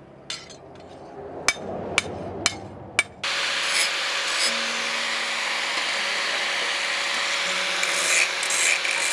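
Several sharp metal taps, then, about three seconds in, a steady harsh rubbing hiss of abrasive work on the steel blade that runs on evenly and cuts off suddenly.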